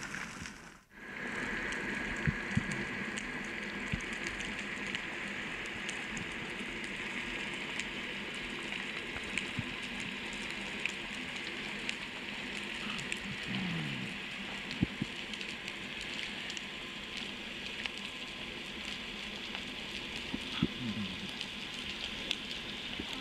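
Underwater ambience: a steady crackling hiss full of scattered clicks, with two short low sounds falling in pitch about halfway through and near the end.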